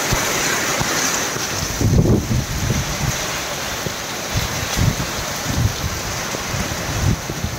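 Torrential monsoon rain pouring down in strong wind: a dense, steady rush of rain, with gusts buffeting the microphone, the strongest about two seconds in.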